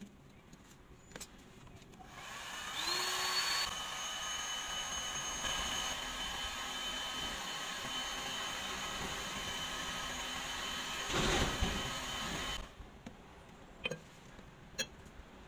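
Electric hot air gun (heat gun) switched on about two seconds in, its fan whine rising quickly to a steady pitch as it blows hot air onto PVC pipe to soften it. The whine swells briefly near the end, then cuts off suddenly, followed by a few light clicks.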